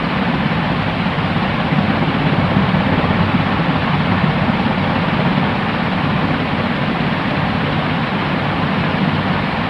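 Steady white noise: an even, unchanging rushing hiss that is duller at the top and fuller in the low range.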